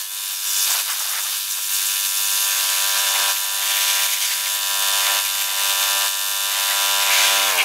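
Small gas-engine pressure washer running steadily at full throttle, its high-pressure water jet hissing loudly against a gas grill.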